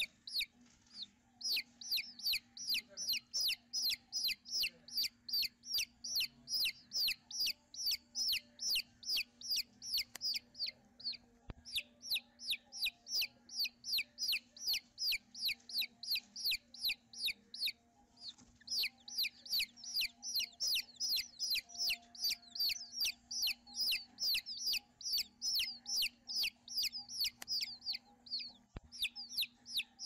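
Oriental magpie-robin nestlings begging: a rapid, even series of short, sharp high chirps, about three or four a second, with a few brief pauses.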